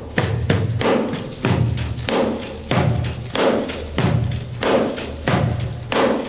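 Headed tambourine played as a hand drum in a steady groove: low thumps on the head alternate with sharper accents that set the jingles ringing, about two hits a second.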